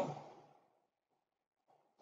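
Near silence: the end of a man's spoken phrase fades out in the first half second, then room tone.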